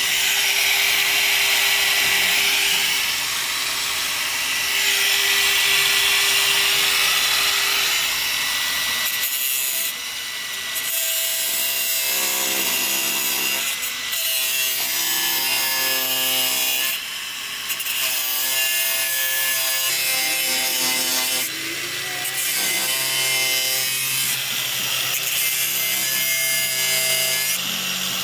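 Angle grinder cutting metal, running continuously with a hissing, whining sound whose pitch shifts as the disc is pressed in, with several short dips in the second half.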